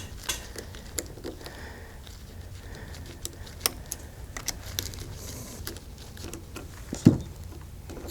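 Small metal parts of a pneumatic reset relay clicking and clinking as they are handled and taken off by hand, with scattered light clicks and one louder dull knock about seven seconds in.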